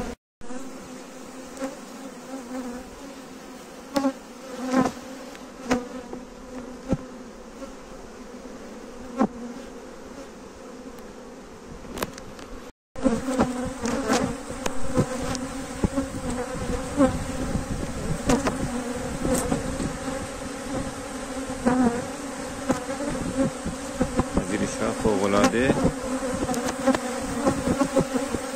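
Steady buzzing hum of a large open colony of Carniolan honeybees, with a few sharp clicks and knocks as hive frames are handled. The sound cuts out twice, briefly, and is louder after the second break.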